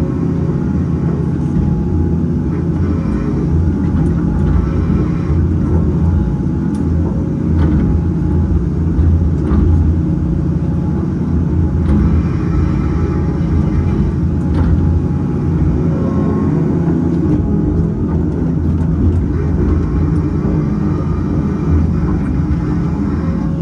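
Caterpillar 568 log loader's diesel engine running steadily as the grapple works, with a few scattered knocks and clunks from the grapple and logs.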